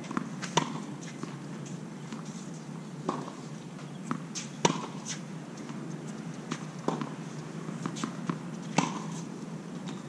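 Tennis balls struck by rackets and bouncing on a hard court during a rally: a sharp pop every one to two seconds.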